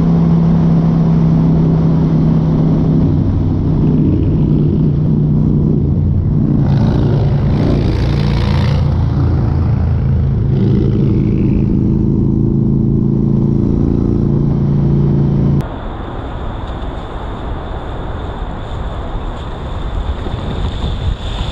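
Motorcycle engine running at a steady cruising speed with wind noise, the wind hiss growing louder for a couple of seconds about seven seconds in. About fifteen seconds in the sound cuts abruptly to quieter motorcycle riding on a city street, with a thin steady high whine.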